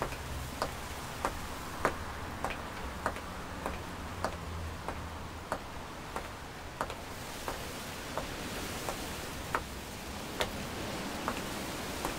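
Steady ticking, one sharp tick about every two-thirds of a second, the gaps stretching slightly toward the end, over a low steady hum.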